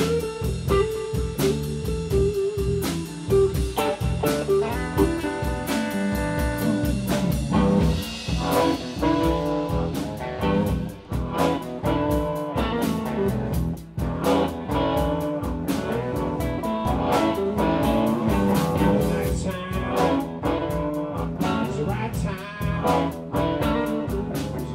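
Live blues band playing: guitar lines over bass and drum kit, with steady drum hits throughout.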